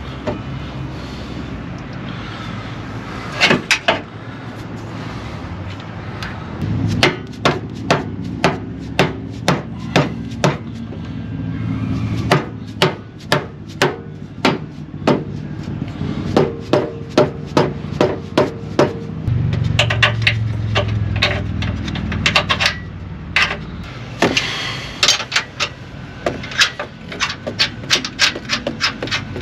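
Hammer knocks on the steel front suspension parts of a truck: a long, uneven run of sharp taps, a few at first and then about one to two a second, with some scraping of metal in between.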